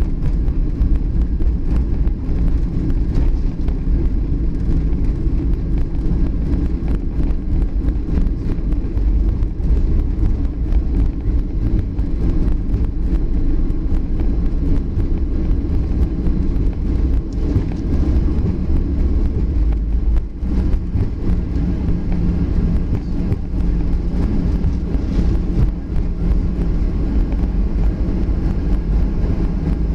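Steady low rumble in the cabin of a Boeing 737 rolling on the ground just after landing: engine noise mixed with the wheels running over the pavement.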